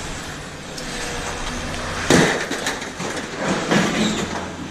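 Scrap metal being handled and rummaged through, clattering, with one sharp bang about two seconds in and smaller knocks after it.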